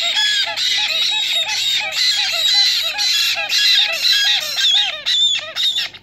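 Black-headed caique chicks begging while being spoon-fed formula: a rapid, insistent run of short rising-and-falling chirps, about three a second, that stops abruptly just before the end.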